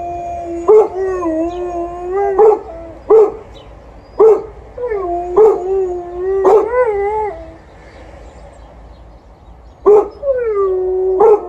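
Golden Retriever barking in single loud barks, about eight of them, while an Alaskan Malamute howls in three long, wavering howls. There is a lull of about two seconds near the end, then both start up again.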